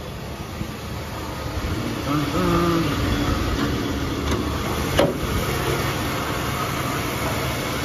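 1979 Chevrolet Impala's 305 small-block V8 idling steadily. A single sharp click about five seconds in, as the hood is unlatched and lifted.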